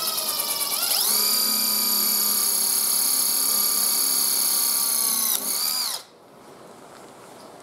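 Cordless drill boring a 1/8-inch hole through a plastic fitting on a lawnmower handle. The motor whine climbs in pitch over the first second as it spins up, holds steady, then cuts off about six seconds in.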